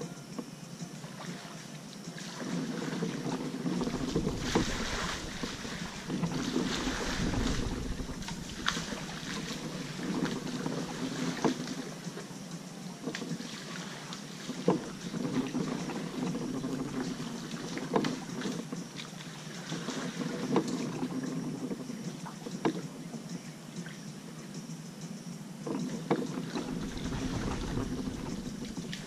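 Kayak paddling: water swishing and splashing with the paddle strokes, and short sharp knocks every few seconds. Wind gusts rumble on the microphone twice, once a few seconds in and again near the end.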